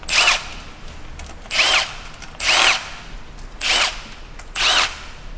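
Electric drill-driver spinning out the loosened camshaft bearing cap bolts in five short bursts, each motor whine rising and falling as the trigger is pulled and released.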